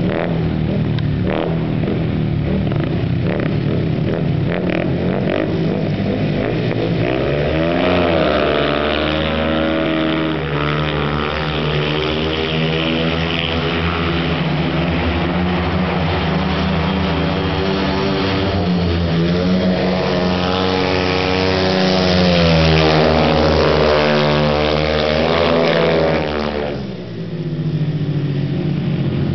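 An engine runs, then revs up about eight seconds in and is held at high, fairly steady revs for about eighteen seconds. Near the end it drops sharply back to a lower running sound.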